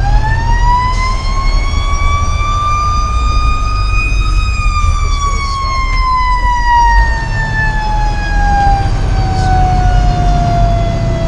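A fire engine's siren heard from inside the cab. It winds up in pitch over the first four seconds, then slowly winds back down through the rest, over the steady low rumble of the engine.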